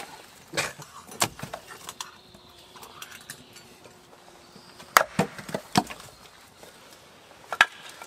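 Hatchet splitting small firewood on a wooden chopping block: about half a dozen sharp, separate chops, the loudest a cluster around the middle and one near the end.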